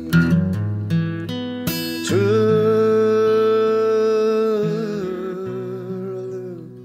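Background music: a slow song with plucked acoustic guitar notes, then a long wavering sung note that steps down once and fades away near the end.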